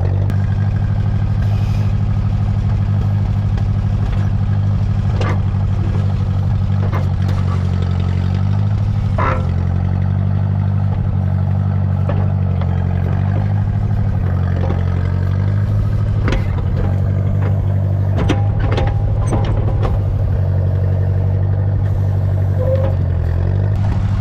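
International Harvester 300 Utility tractor's gasoline engine running steadily under load while the backhoe digs, its pitch shifting slightly now and then, with a few sharp clanks of the machine's metal parts. The engine is running super rich.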